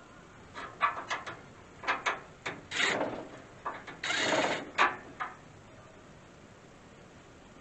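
Power drill drilling out old steel pop rivets in short bursts of about a second each, mixed with sharp clicks and knocks of the bit and rivet pieces, then stopping about five seconds in.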